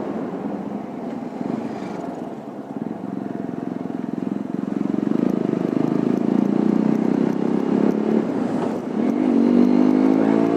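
TVS Apache motorcycle engine running while the bike is ridden at moderate speed, with road noise. Near the end the engine note rises as the bike speeds up.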